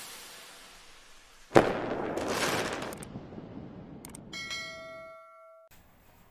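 Channel intro sound effects: a sharp hit with a long whooshing fade about a second and a half in, then a few clicks and a ringing bell chime, the click-and-ding of a subscribe-button animation.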